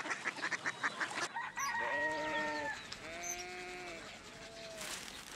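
A rooster crowing: a burst of rapid clucking, then from about a second and a half in a long drawn-out crow, followed by shorter calls.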